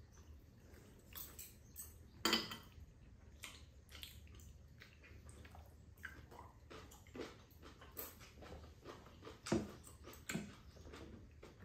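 Eating at a table: metal chopsticks clicking against a stainless serving plate and bowls, with chewing. One sharper clink comes about two seconds in and a few more near the end.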